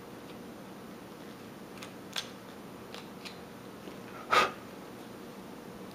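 Small carving knife snicking through wood as chips are cut from a miniature carving: a few faint sharp clicks, then one louder brief scrape about four seconds in.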